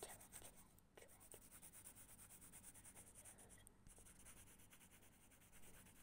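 Faint pencil scratching on paper: quick, repeated back-and-forth strokes of a pencil drawing and shading on a notebook page.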